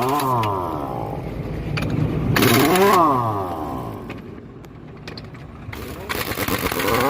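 Power impact wrench loosening the wheel nuts of a punctured trolley wheel. It runs in repeated bursts, each spinning up in pitch with a hiss and then winding down.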